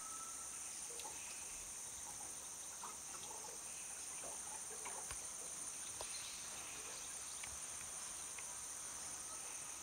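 Steady, high-pitched chorus of insects, with a few faint scattered clicks.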